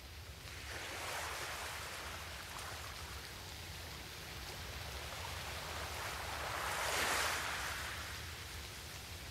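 Rushing water sound swelling twice: once about a second in, then louder about seven seconds in, like surf washing in. A steady low hum runs underneath.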